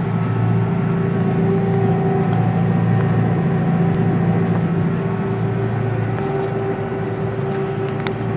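Kubota M135GX-II tractor's four-cylinder turbo diesel engine running at a steady speed, heard from inside the cab as the tractor drives across the field.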